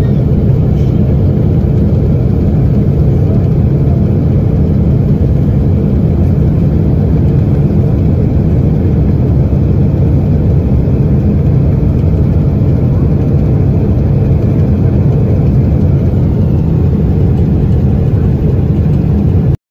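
Loud, steady low rumble of a Boeing 777's engines and airflow heard inside the passenger cabin, with no break. The right engine has failed: its front cowling is torn away and its core is on fire.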